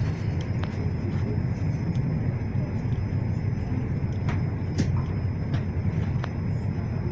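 Suburban electric train running at speed, heard from inside the carriage: a steady low rumble from the wheels and carriage, with a few sharp clicks scattered through it and a faint high steady tone above.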